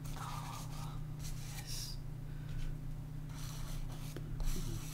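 Hand and soft pastel rubbing on paper: a palm smoothing pastel, then short scratchy strokes of a pastel stick, over a steady low hum.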